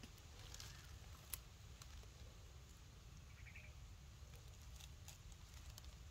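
Near silence: faint outdoor background with a low rumble and a few soft clicks.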